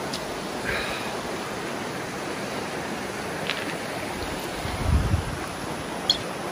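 Creek water running steadily over rocks, with a brief low thump about five seconds in.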